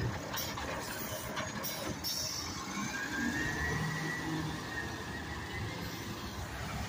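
Automated side-loader garbage truck pulling away, its diesel engine running steadily with a faint whine that rises about two and a half seconds in and then holds. A few light knocks in the first two seconds.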